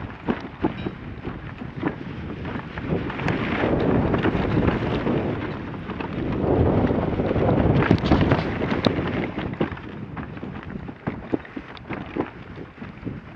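Wind buffeting the microphone, swelling twice, with many small sharp knocks and scrapes scattered through it.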